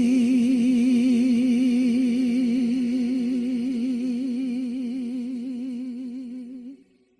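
A single long held note with steady vibrato, fading out slowly as a rock song ends, then stopping about seven seconds in.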